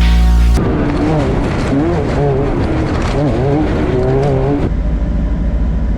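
A vehicle engine revving, its pitch rising and falling repeatedly, then settling to a steadier low running note about two-thirds of the way through. Music cuts off just before the engine comes in.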